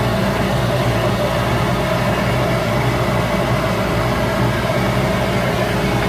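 Shop Fox W1836 midi wood lathe running at a steady speed, with a constant motor hum and a noisy whir.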